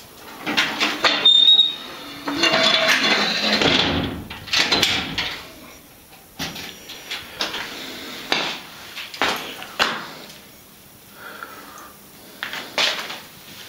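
Irregular knocks and clicks with some rustling, with a longer rustling, scraping noise from about two seconds in, as of someone moving about a cluttered garage and handling things.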